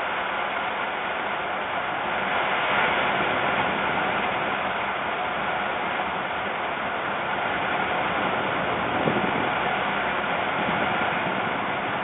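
Strong wind rushing steadily past an outdoor nest box, swelling slightly about three seconds in, with one brief louder gust about nine seconds in.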